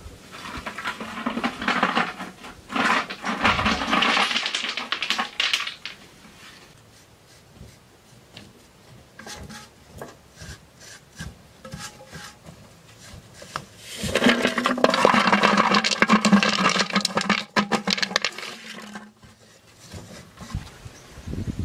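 Stone and mud work on a wall: two long stretches of rough scraping, one near the start and one about two-thirds through, with scattered knocks and clicks between them.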